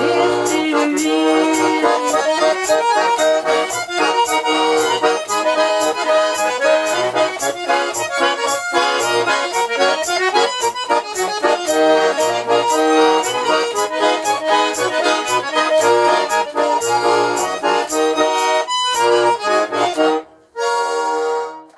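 Garmon, the Russian button accordion, playing the instrumental ending of a song: melody over a rhythmic bass-and-chord accompaniment. About 20 s in it breaks off briefly, then sounds one held final chord that stops just before the end.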